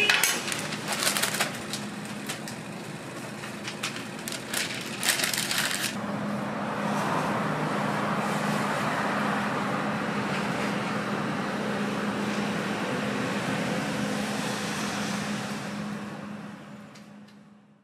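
A metal spatula clicking and scraping on a flat-top griddle while a paper wrapper rustles, then a steady kitchen hum that fades out near the end.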